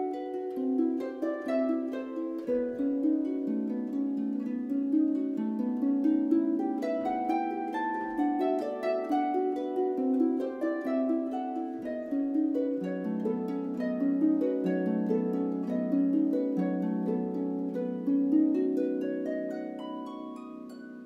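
Background music: a light plucked-string melody of quick successive notes, fading out near the end.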